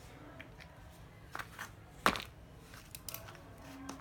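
A few sharp clicks and knocks of cordless drills and screwdrivers being handled and set down, the loudest about two seconds in; no motor is running.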